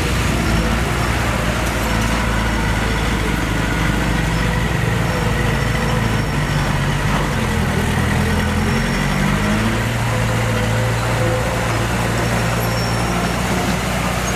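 Heavy diesel machinery engine running steadily, its engine speed shifting about halfway through before it settles again.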